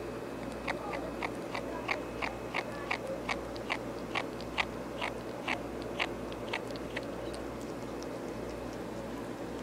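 Ferret eating off a lap, making a rapid run of short, sharp clicks, about three a second, that stops about seven seconds in.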